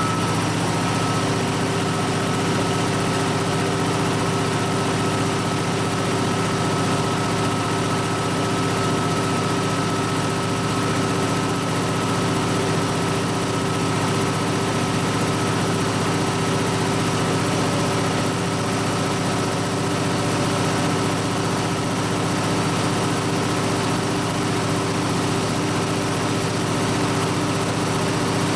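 High-pressure breathing-air compressor, an American Bristol SKD-36V with a 20 hp Ingersoll Rand H15T4 compressor, running steadily under load while filling an air bottle. It makes an even mechanical hum with a few steady tones and no change in pace.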